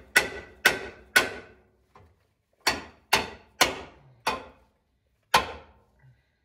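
Rubber mallet striking a steel skid plate support bracket to drive it into place under the truck, each blow with a short ring. Three blows about half a second apart, a pause, then five more, the last after a longer gap.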